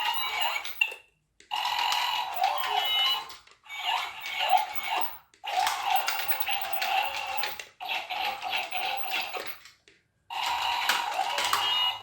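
Two Chad Valley remote-control toy robots playing their electronic robot sound effects through small speakers: warbling, gliding beeps with scattered clicks. They come in five bursts of a few seconds each, broken by short silences.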